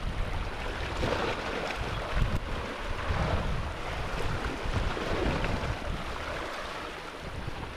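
Sea waves washing and surging against rocks, swelling and easing a few times, with wind buffeting the microphone.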